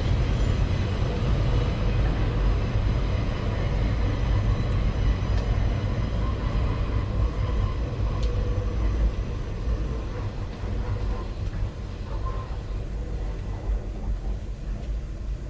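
A train rolling past: a steady low rumble that slowly fades over the second half.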